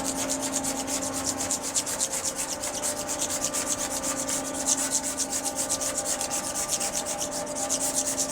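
Fast, regular back-and-forth rubbing strokes on a car's painted stripe, about five or six a second, working off cured polyurethane spray-foam overspray.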